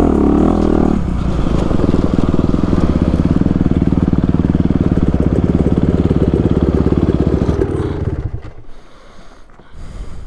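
Dirt bike engine running steadily at low revs, with a fast even pulse, as it climbs a trail; about eight seconds in it drops off to a much quieter, low idle.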